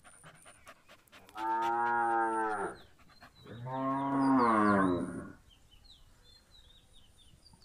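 Cattle mooing twice, each call lasting about a second and a half, with a short pause between them.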